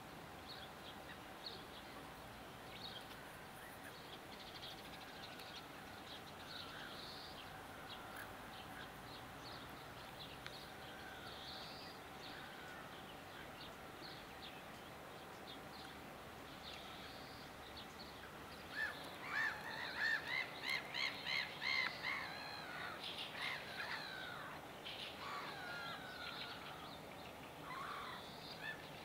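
Wild birds calling: faint chirps and twitters throughout, then about two-thirds of the way in one bird gives a loud run of repeated calls, about three a second, before the twittering goes on.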